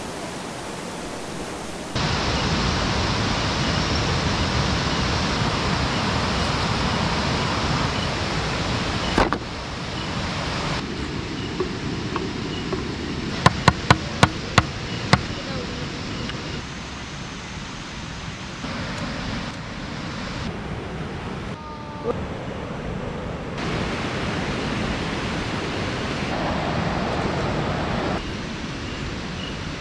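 Steady rush of a shallow stream running over rocks, with a quick run of about six sharp knocks around the middle as a knife is worked into a green bamboo pole.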